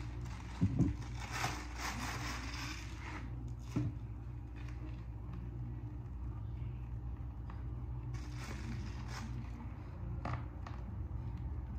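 Soft rustling and squishing of a disposable plastic piping bag being squeezed to pipe whipped cream onto a cake, with a couple of light knocks, over a steady low hum.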